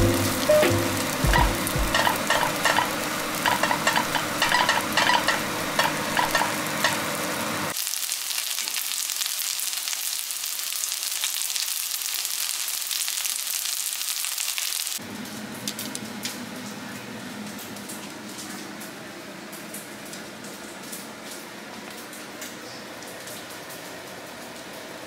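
Cooked rice frying in salmon oil and sesame oil in a pan, sizzling and crackling as it crisps into crispy rice. For the first several seconds a plastic rice paddle scrapes and presses the rice, giving a run of quick clicks. The sizzling turns quieter about fifteen seconds in.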